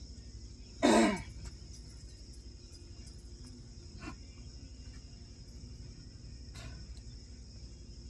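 Crickets chirring steadily over a low hum. A short voiced sound, falling in pitch, comes about a second in.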